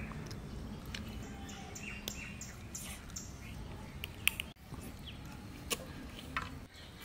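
Small birds chirping in short, high notes, with a few sharp clicks, the loudest about four seconds in, over a low steady rumble.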